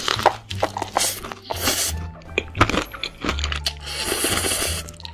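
Close-miked crunching and chewing as fried chicken coated in noodles is bitten into, several sharp crunches in a row, over background music.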